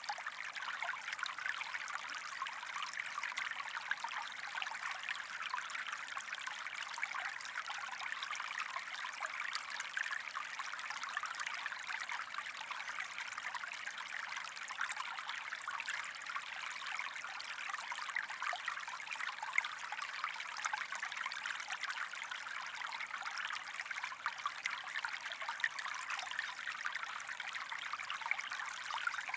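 Steady white-noise sleep sound with the hiss and fine splashing texture of running water, like a flowing stream, holding an even level with no heartbeat or pulse in it.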